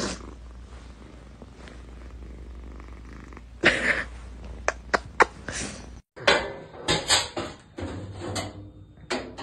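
Kitten purring close to the microphone, a steady low rumble, with a louder rustle about four seconds in and a few clicks. A cut about six seconds in ends it, and a series of sharp knocks and clatters follows.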